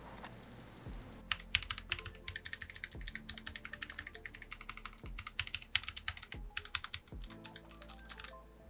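Kailh Box White clicky switches on a Feker JJK21 mechanical keypad being typed on rapidly: a quick, uneven run of sharp clicks with a few short pauses.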